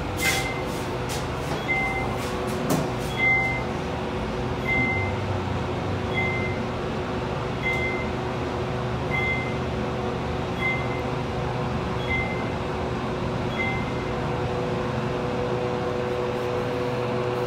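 Elevator car in motion: a steady hum with two low steady tones, and a short high beep about every second and a half that stops near the end. A few clicks and knocks come in the first three seconds.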